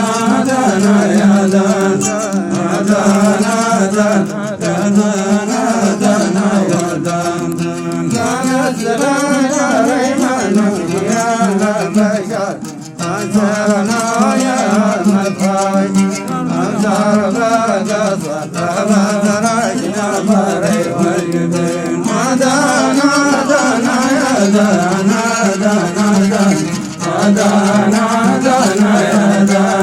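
Men singing Hadhrami dan, a drawn-out, ornamented Arabic melody sung in long phrases, over a steady low note held beneath.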